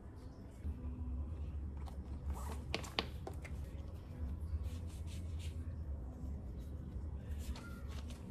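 Shoelaces being pulled tight and tied on sneakers: soft rustling and scraping, with a few sharp clicks about three seconds in, over a steady low hum.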